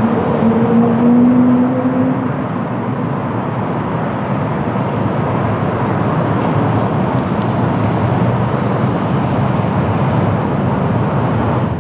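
Jet airliner engine noise, a loud steady rushing, with a faint hum that rises slightly in pitch over the first two seconds.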